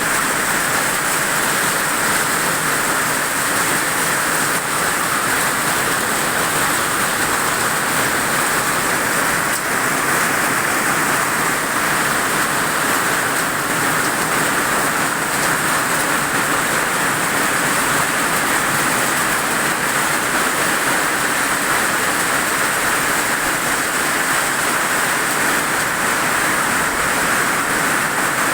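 Rain falling in strong wind, a steady even hiss that does not let up.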